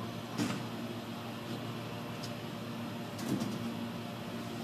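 Rear-loading garbage truck idling steadily with a low hum. Two clunks from plastic trash cans being handled, about half a second in and again a little after three seconds.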